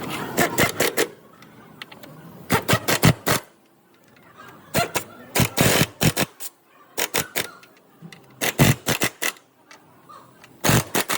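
Metal hand tools clicking and knocking in short bursts, about six bursts separated by quieter pauses, during work on a car's engine mount.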